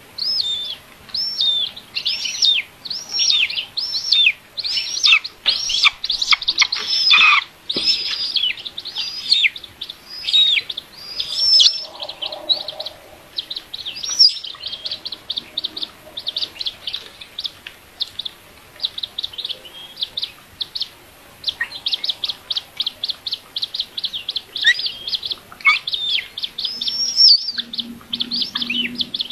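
Young bird of prey in the nest giving rapid, repeated high-pitched begging calls while being fed: thin notes that drop in pitch, several a second, in runs with short pauses.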